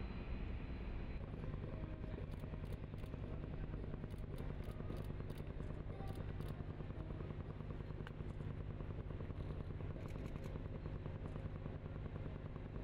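Steady low mechanical hum of a large warship's machinery, with scattered faint clicks over it.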